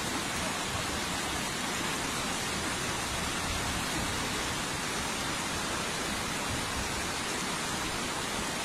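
Rushing river water, a steady even rush with no breaks.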